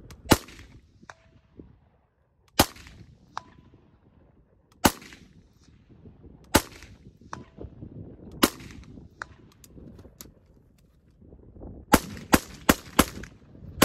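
AR-type carbine firing: five single shots about two seconds apart, then a quick string of about five shots near the end. Some shots are followed a moment later by the faint ring of a steel target being hit.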